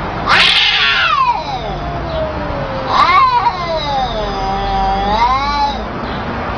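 Cats yowling in a fight. A harsh screech comes near the start, then long drawn-out yowls that slide down and waver in pitch.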